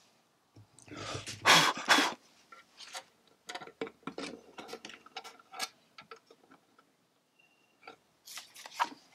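Handling noises of small wood screws being picked out and set into the holes of a brass piano hinge: scattered light clicks and rustles, with a louder rustle about a second in and again near the end.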